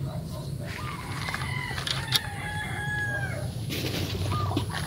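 A rooster crowing once, a long stepped call lasting about two and a half seconds, starting just under a second in. A sharp click sounds near the middle, over a steady low rumble.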